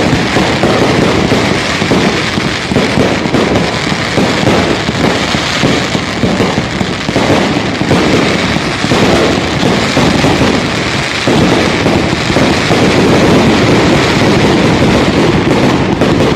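Fireworks going off in a dense barrage: a continuous crackle of rapid, overlapping bangs with no break, getting a little louder about two-thirds of the way through.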